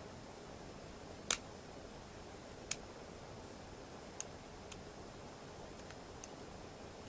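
Single-pin picking of a Draper high-security padlock with mushroom pins: sharp little metallic clicks from the pick and tension wrench working the pins in the cylinder. Five clicks at uneven gaps, the first, about a second in, the loudest.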